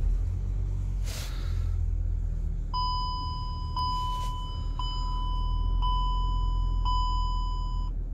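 Volkswagen Touareg 3.0 V6 diesel engine starting up and idling, heard from inside the cabin as a low steady rumble. From about three seconds in, a dashboard warning chime sounds over it, one clear tone about once a second, five times.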